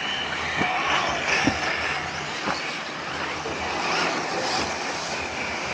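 Brushless electric motors of large-scale RC cars whining, rising in pitch as they accelerate, over a steady noisy hiss, with a few short sharp knocks.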